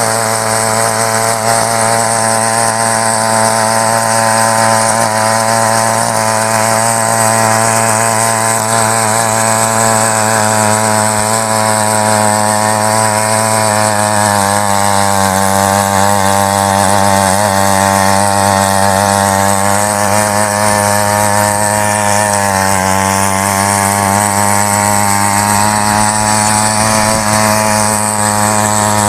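68cc petrol mini weeder engine running at high, steady speed while its rotary tines churn soil, with the engine note dipping slightly under load about halfway through.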